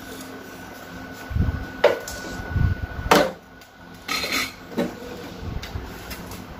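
A few sharp clicks and clatters of small hard parts being handled, as a plug lead with clips is rigged to an oven's heating lamp; the loudest comes about three seconds in.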